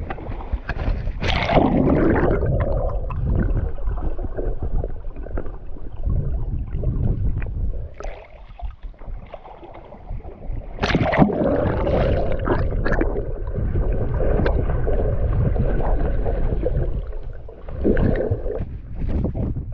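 Sea water sloshing and splashing close to a head-mounted action camera as a person wades through shallow water, in irregular swelling surges over a low rumble; near the end the camera dips underwater.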